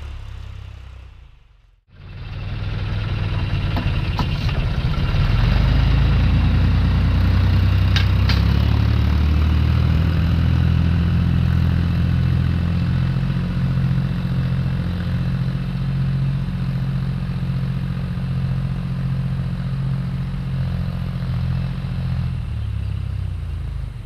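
A tractor engine running steadily while ploughing. The sound drops out briefly about two seconds in, then comes back in, settles into a steady note and eases off near the end.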